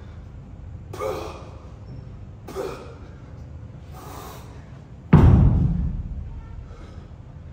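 Three short, forceful exhalations about a second and a half apart, as from effort during workout reps, then a loud, heavy thud about five seconds in that rings on and fades over a second or so.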